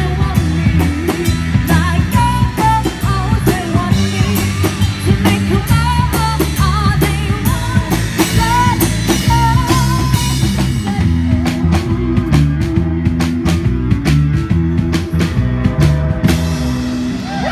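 Live rock band playing: a woman singing lead over electric guitar, electric bass and a drum kit. The singing stops about eleven seconds in, and the rest is the band alone with a run of sharp, evenly spaced drum hits.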